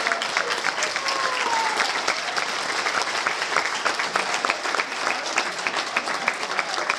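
A group of people clapping their hands in applause, with a short voice call falling in pitch about a second in.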